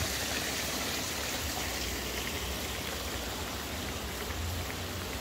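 Steady hiss of light rain falling on wet paving, with faint scattered drop ticks and a low rumble that swells and fades underneath.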